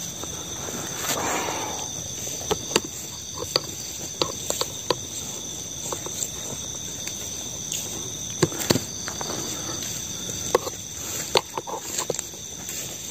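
Night insects, crickets among them, trilling steadily at a high pitch, with scattered short clicks and snaps in the undergrowth, the loudest near the middle and toward the end.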